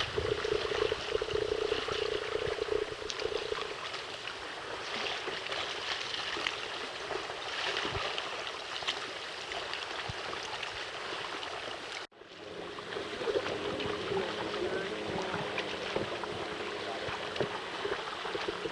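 Lake water splashing and lapping around a kayak on the move, with small drips and splashes, breaking off abruptly for an instant about twelve seconds in.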